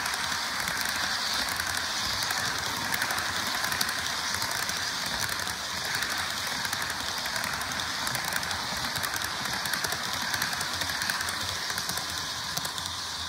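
HO scale GE ES44AC model diesel locomotive running on track with its onboard sound playing: a steady hissing rumble with a fine crackle of clicks.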